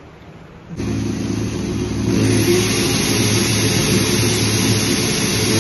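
Handheld power drill running continuously while drilling into a polygranite (PVC marble) wall sheet, starting suddenly about a second in and getting harsher and louder about two seconds in.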